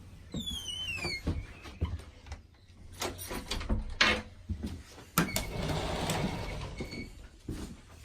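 A door opening with a short falling squeal, then knocks and clicks of handling and steps, and a rushing hiss lasting about a second and a half near the end.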